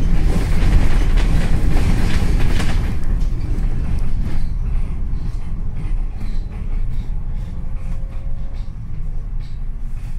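Cabin noise on the upper deck of a double-decker bus in motion: a heavy engine and road rumble with rattling and clattering. It eases after about three seconds as the bus slows, and a faint thin whine comes in near the end.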